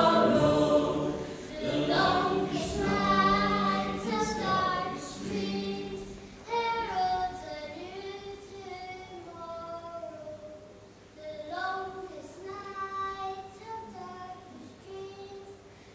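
A choir singing a slow song, fading within the first few seconds into a single child's voice singing the melody alone in long held notes.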